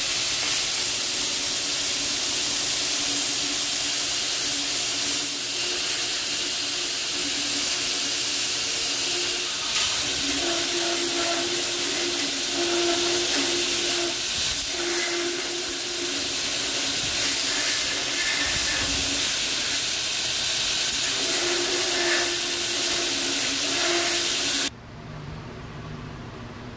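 Belt grinder running with a hardened 80CrV2 steel cleaver blade pressed to the abrasive belt, grinding in the bevels: a loud, steady hissing rasp with a hum underneath that comes and goes. About 25 seconds in it cuts off suddenly, leaving a much quieter low hum.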